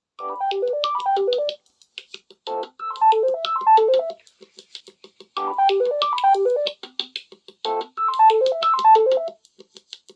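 A Samsung tablet ringtone playing: a short melody of bright keyboard-like plucked notes stepping up and down, the same quick phrase repeated four times with brief pauses between.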